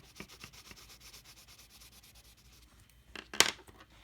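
Colored pencil shading on sketchbook paper: quick back-and-forth scratchy strokes, then a louder brief scrape or knock about three seconds in.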